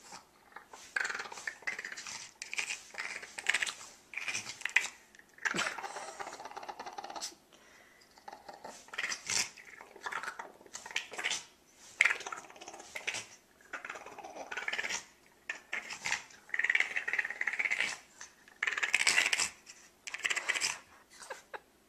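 Boston terrier making short, irregular bursts of breathy vocal noises while being rubbed and played with by hand.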